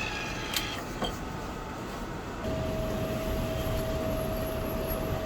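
Desktop PC starting up to boot from a floppy disk: two short clicks, then about two and a half seconds in a steady whirring hum with a single held tone sets in as the floppy drive spins up and reads the boot disk.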